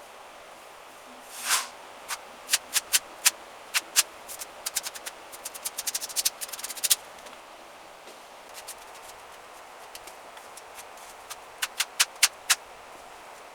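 Drywall knife working joint compound over plaster: a scrape about a second and a half in, then a dense run of sharp irregular clicks and short scrapes, and another short run of clicks near the end.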